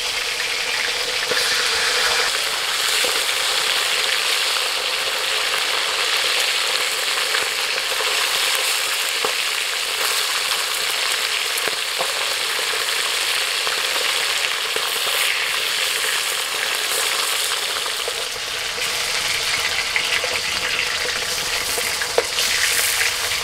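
Tilapia pieces sizzling steadily as they shallow-fry in hot mustard oil in a kadai, with a few light scrapes and taps of a metal spatula turning them.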